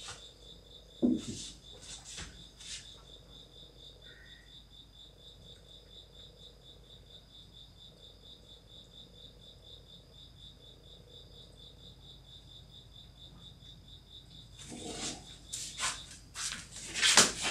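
Insects chirping in a steady, rapid pulsing trill, high-pitched. A few soft knocks come in the first seconds, and louder rustling and knocks start about three seconds before the end.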